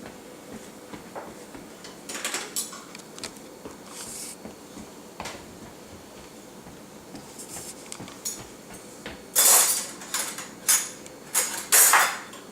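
Dishes and silverware clinking and clattering as a dishwasher is unloaded, with a few scattered knocks at first and a run of louder clatters in the last few seconds.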